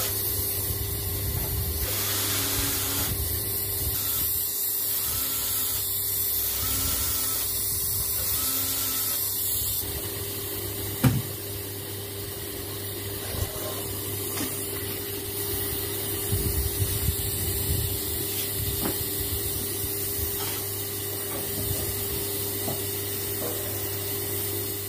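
Gas brazing torch hissing steadily while copper U-bend joints on an air-conditioner evaporator coil are brazed, over a steady low hum. A single sharp click about eleven seconds in.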